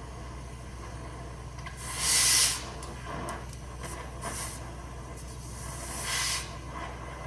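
Cutting torch blasting through a rusted exhaust bolt: short hissing bursts of the cutting jet, the loudest about 2 s in and another about 6 s in, over a steady low hum.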